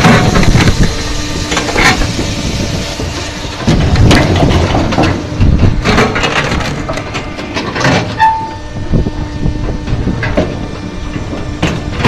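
Firewood processor working a large log round: the machine runs steadily while the wood crunches and cracks in loud surges about every two seconds. There is a brief squeal about eight seconds in.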